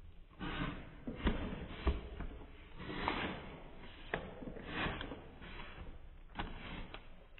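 A cardboard trading-card box and the foil card packs inside it being handled: bursts of rustling and crinkling, with two sharp knocks about one and two seconds in.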